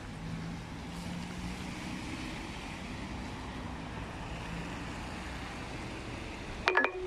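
Road traffic on a wet town street: a low engine hum and tyre hiss over steady outdoor noise, swelling a little about two to three seconds in. Near the end comes a brief sharp sound with a short held tone.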